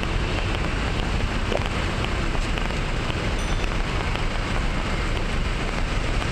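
Steady street noise of traffic running along a wide city road: an even hiss over a low rumble, with no single car standing out.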